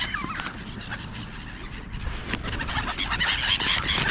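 A flock of black-headed gulls calling. A few scattered calls at first thicken into a dense chorus of overlapping cries about halfway through.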